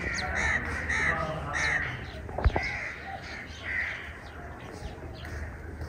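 Crows cawing repeatedly, short harsh calls coming every half second or so with gaps, and one sharp click about halfway through.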